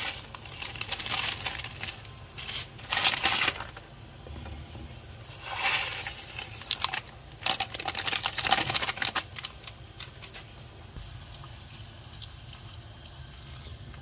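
Bursts of crackling and splashing, about four of them, as dry instant noodle blocks go into a pan of simmering sauce. It settles to a quieter simmer after about nine seconds.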